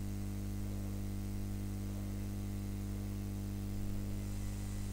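Hot air rework station blowing on a circuit board: a steady low hum with an even hiss of air, heating the solder joints of an EEPROM chip to desolder it.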